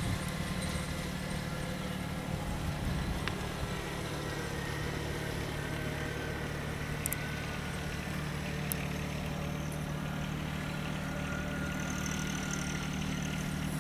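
John Deere 1026 compact tractor's three-cylinder diesel engine running steadily as it tows an arena leveller over wet sand, with a few light clicks.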